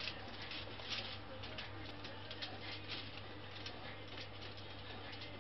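Faint crinkles and light clicks from hands handling aubergine halves on aluminium foil, scattered irregularly over a low steady hum.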